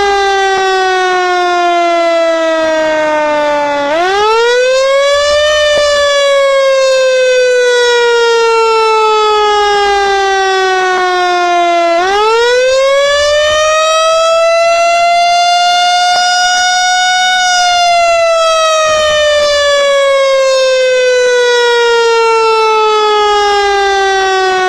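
A siren wailing in long, slow cycles: the pitch climbs quickly, then sinks gradually over several seconds, climbing again about four seconds in and about twelve seconds in, where it holds high for a few seconds before a last slow fall. It is sounded as a last call in tribute to fallen colleagues.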